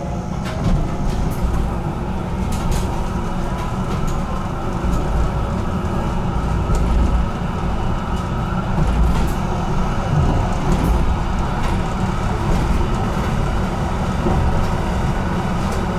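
HTM GTL8 articulated tram running along the track, heard from on board: a steady low rumble of wheels on rails with occasional clicks. A faint motor whine rises in pitch over the first few seconds as the tram gathers speed.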